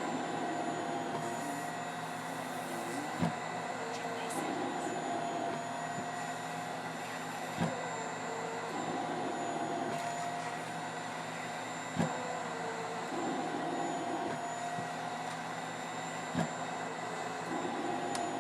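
Cough Assist mechanical insufflation-exsufflation machine cycling, forcing air into a child's airway and drawing it back out to mimic a cough. Its steady blower hum shifts in pitch through each cycle, with a sharp click about every four and a half seconds.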